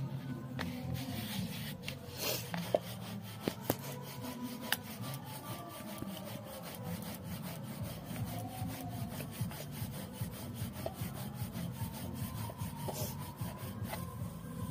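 Rolling pin rolling out a ball of paratha dough on a board: a steady back-and-forth rubbing, with a few light knocks in the first few seconds.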